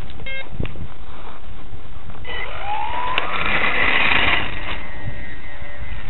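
RC foam plane's electric motor and propeller spooling up with a rising whine that swells to full power and then fades as the plane climbs away, after a short beep just after the start. Wind buffets the microphone with a low rumble throughout.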